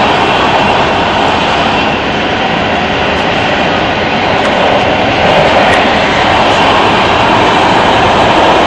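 Los Angeles Metro Red Line subway car running between stations through the underground tunnel, heard from inside the car as a loud, steady roar of wheels, rails and running gear. It grows louder about five seconds in.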